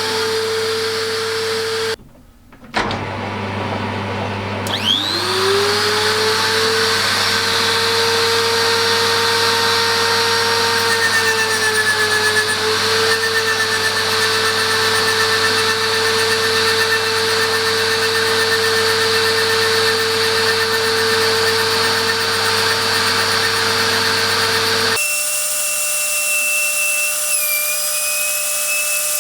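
Small high-speed grinder motor running on the lathe with a steady whine. It spins up with a quickly rising pitch about five seconds in. Near the end the sound cuts to a higher, slightly wavering whine.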